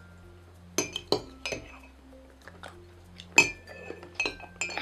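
Metal spoons clinking against ceramic mugs of shaved snow-cone ice as it is stirred and scooped: a string of irregular clinks, the sharpest about three and a half seconds in.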